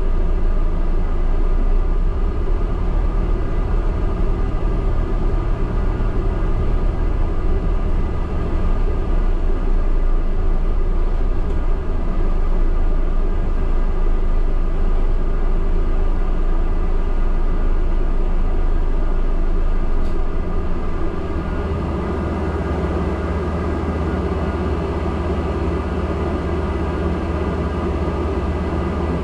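Interior drone of a London double-decker bus heard from the upper deck: steady engine and road rumble with several held tones. About two-thirds of the way through it settles to a lower, quieter hum as the bus halts at red lights.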